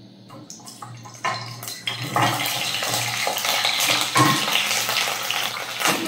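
Peeled boiled eggs pushed off a glass plate with a wooden spatula into hot coconut oil: a few clinks of spatula and eggs on glass, then from about two seconds in the oil sizzles and crackles steadily as the wet eggs hit it.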